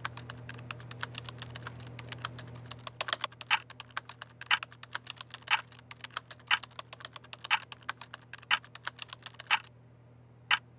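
Rapid typing on a laptop keyboard that stops near the end, with a clock ticking about once a second from about three seconds in. A low steady hum runs underneath.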